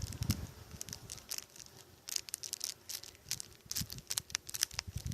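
Scattered, irregular light clicks and crackles, several to the second, with nothing steady beneath them.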